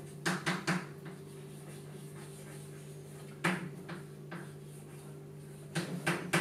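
Chalk writing on a blackboard: short taps and scratches as letters go onto the board, three quick ones just after the start, one about halfway, and a cluster near the end, over a steady low room hum.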